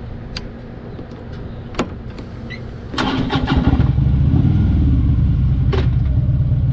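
Harley-Davidson motorcycle's V-twin engine being started about three seconds in: a brief burst of starter cranking, then the engine catches and runs steadily with a loud low rumble. Before it, only a quieter low hum with a couple of small clicks.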